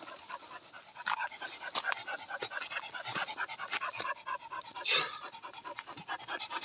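A young hunting dog panting quickly and steadily, with one short, louder breathy burst about five seconds in.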